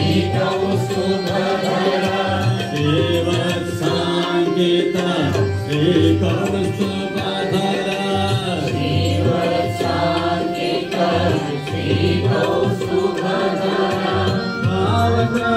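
Devotees singing a Hindu devotional bhajan together, over steady held instrumental tones and a rhythmic drum beat.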